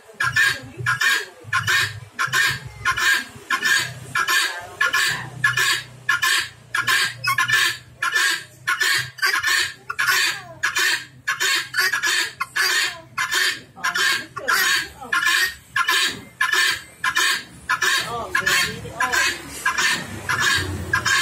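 Female helmeted guineafowl calling over and over, a rapid, even series of short calls at about two a second ("kok ok kok").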